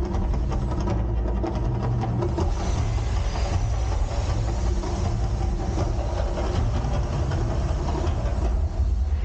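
Loud, steady deep rumble with a noisy wash above it, like the rumbling sound effects of an outdoor volcano show.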